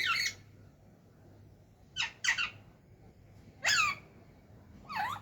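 Parrot giving short squawking calls, each falling in pitch: one at the start, a quick pair about two seconds in, then two more single calls.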